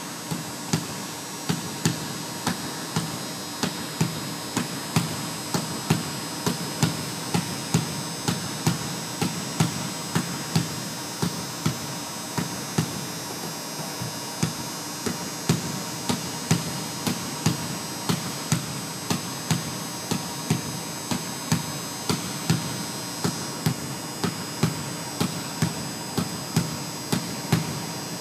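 Basketball dribbled on a hardwood gym floor, bouncing in a steady rhythm of about two bounces a second, over a steady background hum.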